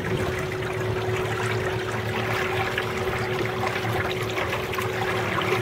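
Water washing and trickling along the aluminium jon boat's hull as it moves, over a steady hum from the 30-pound-thrust electric trolling motor.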